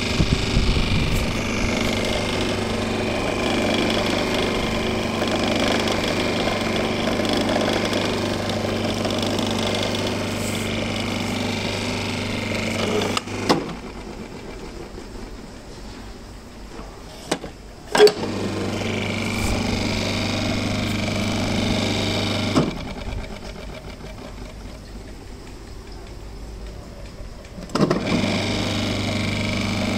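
Robot Coupe R301 Series D food processor motor running with a steady hum, then switched off about halfway through. After a couple of sharp clicks it runs again for a few seconds, stops, and starts once more near the end as the On button is pressed.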